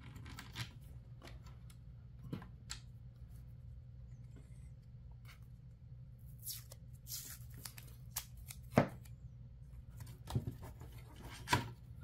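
Small screws being fitted by hand into a circuit-board mounting plate: scattered light clicks and taps with brief rubbing and rustling, and a few sharper clicks near the end.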